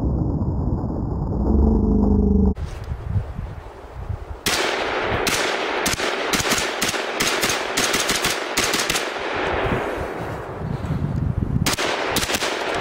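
AR-15 rifle (Smith & Wesson M&P15) firing Tula 55-grain steel-case .223 in rapid semi-automatic fire, a magazine dump: a quick string of sharp shots, about three a second, with a brief lull before a last few shots near the end. It is preceded by a deep low rumble that cuts off suddenly about two and a half seconds in.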